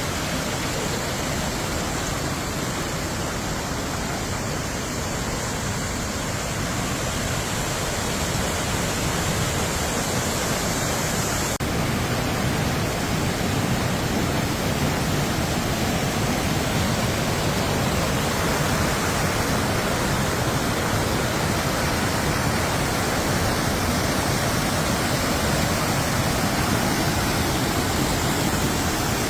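Steady rushing noise with no separate events, changing slightly in tone about twelve seconds in.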